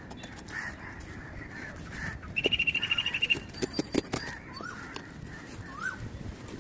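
Birds calling: short rising chirps repeating about every second and a half, and a fast pulsing trill lasting about a second, the loudest sound. A few sharp clicks come just after the trill.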